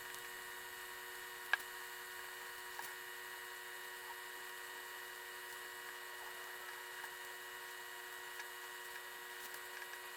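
Faint steady hum made of several held tones, with a sharp click about one and a half seconds in and a few faint ticks.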